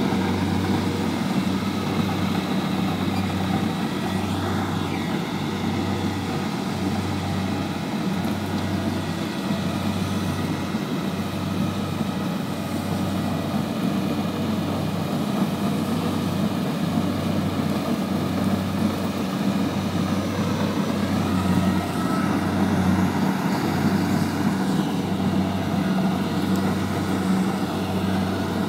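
Kubota DC70 rice combine harvester running while it harvests, a steady engine drone with a regular low throb about once a second.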